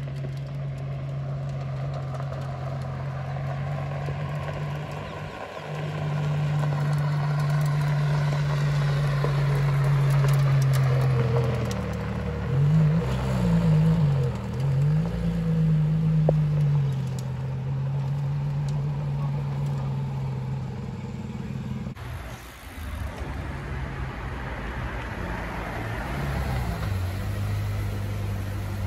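Ferrari LaFerrari's V12 engine running with a steady low note, blipped up and down several times about halfway through as the car moves off. After a sudden change about three quarters of the way in, a different car engine idles steadily.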